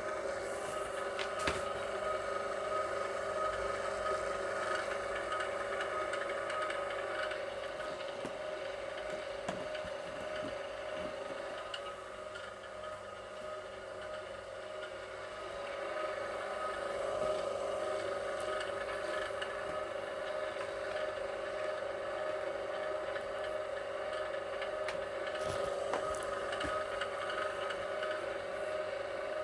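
Vevor electric wire stripper's motor running with a steady whine while copper wire is fed through it, dipping slightly for a few seconds midway, with a few faint clicks.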